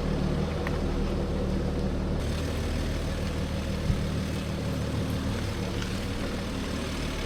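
Diesel Jeep Gladiator engine running steadily at low speed while crawling over rocks, with one sharp knock about four seconds in.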